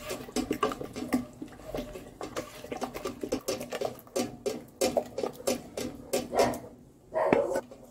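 Wooden spoon stirring and scraping round a stainless steel saucepan, with many quick irregular taps and scrapes. A short louder sound comes near the end.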